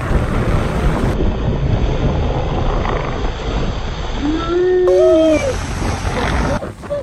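Waves surging and crashing against shoreline rocks, with spray splashing and wind rumbling on the microphone. About four and a half seconds in, a drawn-out cry rises and falls, with a second higher one overlapping it for about a second.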